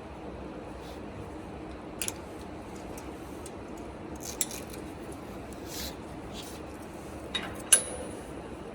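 Small metal parts and hand tools clicking and clinking as parts are handled during disassembly of a laser cutting machine: a few scattered sharp knocks, the loudest near the end with a short high metallic ring, over a steady low hum.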